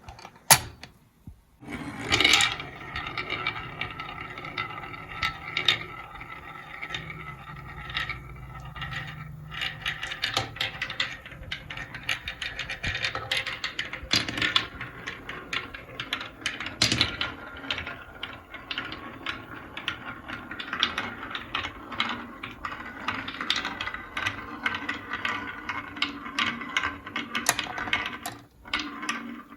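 Marbles rolling and clattering down a marble run track: a continuous rolling rumble with frequent small clicks and knocks as they hit the track, the loudest knock about two seconds in.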